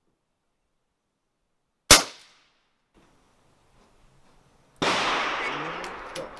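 A single sharp, loud crack of an AirForce Condor .22 pre-charged pneumatic air rifle firing a heavy slug, about two seconds in. About three seconds later a second loud, noisy burst starts suddenly and fades over a second or so.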